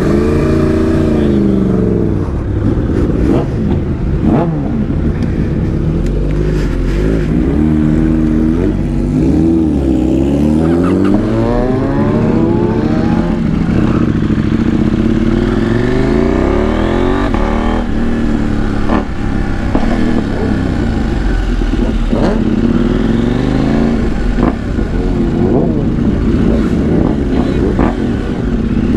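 A group of superbike engines running and revving at low riding speed, their pitch rising and falling over and over, with several engines overlapping. They are heard close up from one of the bikes.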